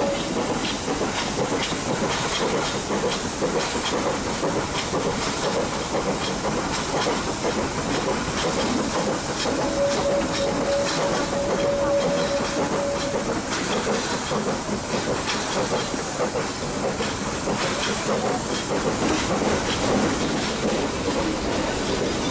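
Nilgiri Mountain Railway metre-gauge toy train running, a steady rushing noise with a light clatter of wheels on the rails. About ten seconds in, a steady high tone sounds for some three seconds.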